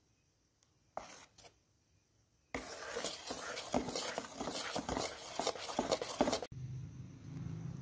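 Metal spoon stirring thick malpua batter in a metal bowl, scraping and knocking against the sides in quick strokes, after a near-silent start with a couple of light ticks. Near the end it gives way to a quieter steady low hum.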